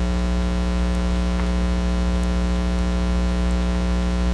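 Steady electrical mains hum with a stack of overtones, loud and unchanging.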